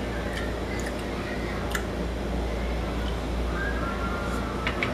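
Vinegar shaken from a plastic bottle onto a salad: faint liquid drips and a few light clicks of the bottle, more of them near the end, over a steady low hum.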